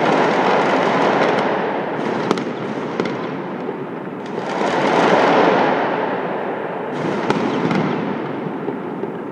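Fireworks crackling and popping across the city in dense waves that swell and fade, with a few sharper bangs standing out.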